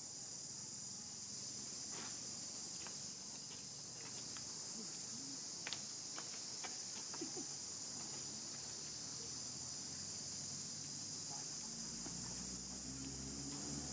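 Steady high-pitched chorus of insects, with a few sharp clicks or snaps in the middle and a low pitched voice-like sound starting near the end.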